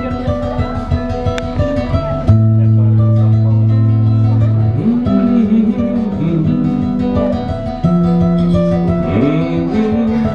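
Acoustic guitar played solo live: a fingerpicked melody over deep, long-ringing bass notes, the instrumental introduction to a song.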